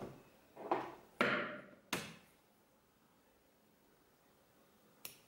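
Scissors handled close to the microphone, a few short sliding, rustling sounds in the first two seconds, then one short, sharp snip about five seconds in as the blades cut a beading-thread tail.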